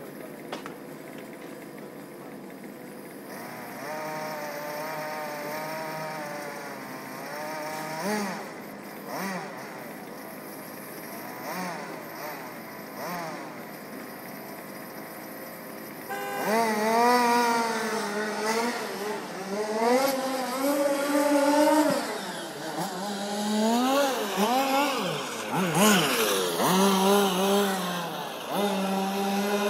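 Small two-stroke petrol engine of a 1/5-scale MCD X4 RC rally car, revving up and down repeatedly as it is driven round the ice track. It is faint at first and much louder from about halfway in as the car comes near.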